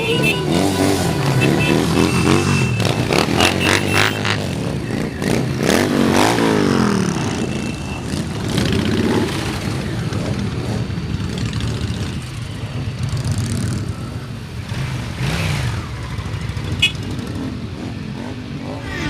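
Motorcycle engines running and revving, several at once, their pitch rising and falling.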